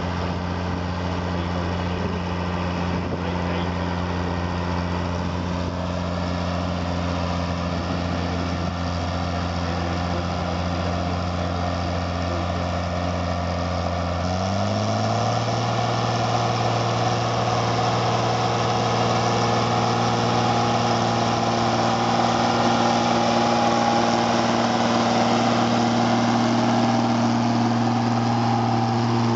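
Diesel tractor engine running steadily. About halfway through its note rises to a higher speed and grows a little louder, then holds there as a County four-wheel-drive tractor pulls a plough through the ground.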